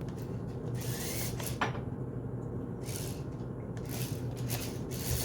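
Toy tracked RC stunt car driving over carpet: its small electric motors hum steadily while the tracks rub on the carpet, with several short bursts of louder scraping.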